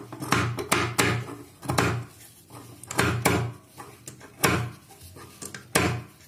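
Large steel tailoring scissors snipping through layered fabric at a seam edge, a series of separate cuts at uneven intervals about a second apart.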